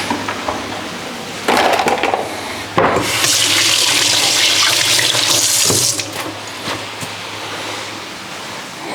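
Kitchen tap running for about three seconds, starting and stopping abruptly, after a few knocks and clatters of handling things at the counter.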